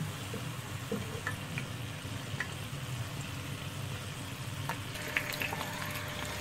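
Dough cup deep-frying in hot oil around an upturned steel bowl, a steady sizzle. Light metal clicks from tongs against the bowl and pan come more often in the last second or so, as the bowl comes free of the fried shell.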